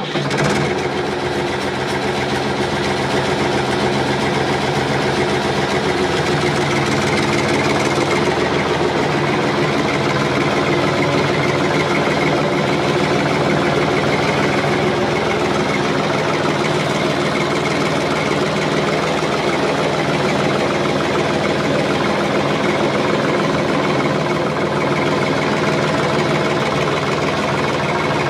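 A large engine running steadily at an even speed, a dense stack of low engine tones with a little shift in pitch about six to eight seconds in.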